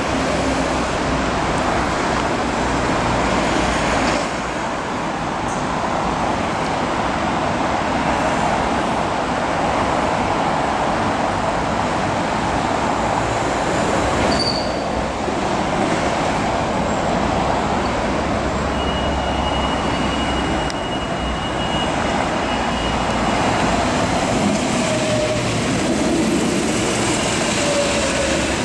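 DB Class 642 Desiro diesel multiple unit approaching and passing close by: steady diesel engine running and wheels rumbling on the rails. A thin, high, steady squeal sounds for a few seconds past the middle.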